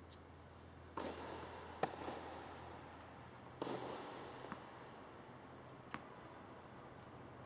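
Tennis racquets striking the ball and the ball bouncing on a hard indoor court, each impact echoing in the large dome: a hit about a second in, the loudest sharp knock just after, another hit at about three and a half seconds, then a few lighter ball knocks.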